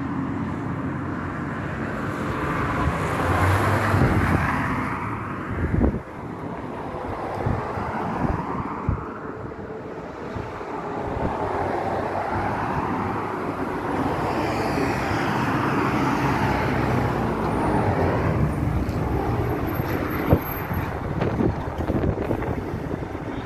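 Street traffic: cars driving past one after another, their engine and tyre noise swelling and fading.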